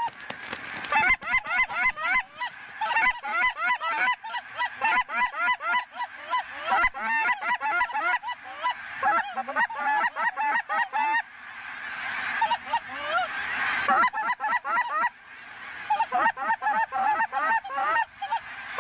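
Huge flock of geese calling all at once: a dense, unbroken chorus of overlapping high honks, with a rush of noise swelling for a few seconds past the middle.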